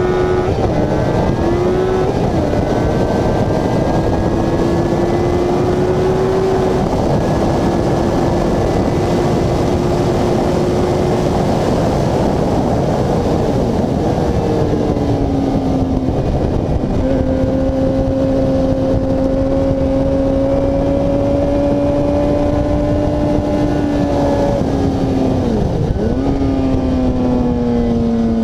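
Motorcycle engine at speed on track, heard from an onboard camera under heavy wind rush. The engine note climbs slowly in each gear and drops in pitch at the gear changes, with a sharp dip and recovery near the end.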